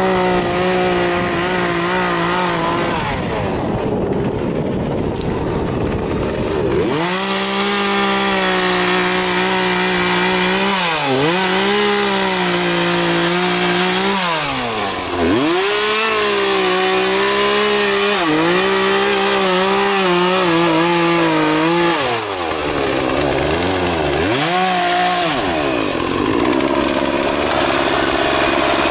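Gasoline chainsaw cutting through a felled pine log. The engine runs at high revs, its pitch sagging and recovering several times as the chain bites into the wood, then drops to a lower, quieter note near the end.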